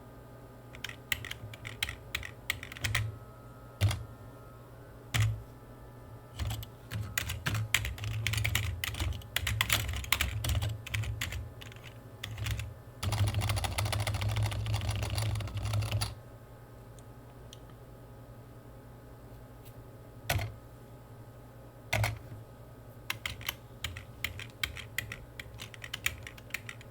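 Typing on a computer keyboard in uneven bursts of rapid keystrokes, with pauses and a few single heavier key presses. A dense, unbroken run of typing comes about halfway through, followed by a few seconds with almost no keystrokes.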